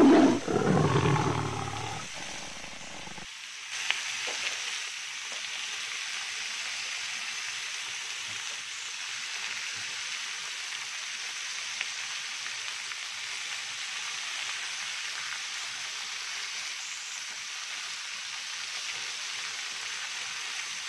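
Bacon-wrapped beef tenderloin medallions sizzling steadily in a hot grill pan.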